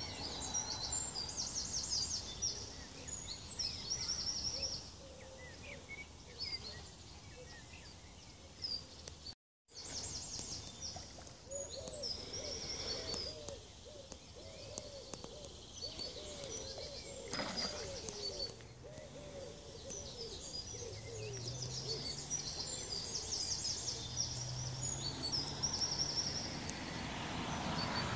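Birds singing and calling: high chirps and short trills throughout, with a run of rapid lower calls in the middle. A faint low drone builds near the end.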